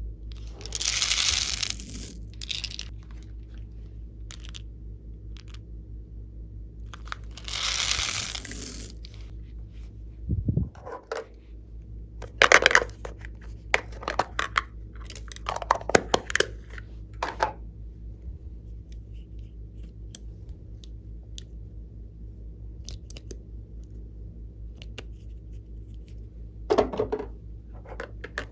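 Glossy slime being worked by hand. There are two longer hissy stretching sounds early on, then a run of sharp pops and clicks from about ten seconds in, with a few more near the end.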